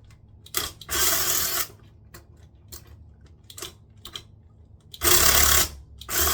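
Three short bursts of rapid mechanical rattling from a tool working on the toilet's floor bolts, each under a second long: one about a second in, one about five seconds in, and one starting near the end.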